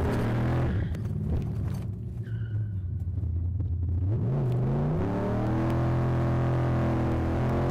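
Fox Body Mustang engine running as the car drives off. It fades somewhat after the first second, then rises in pitch about four seconds in as the car accelerates, and holds steady at the higher note.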